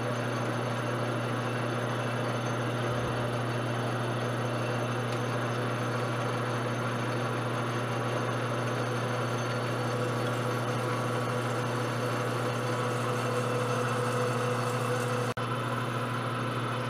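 Metal lathe running steadily while a twist drill in the tailstock chuck drills into the end of the spinning bar stock: a constant motor hum under the cutting noise, with a momentary break near the end.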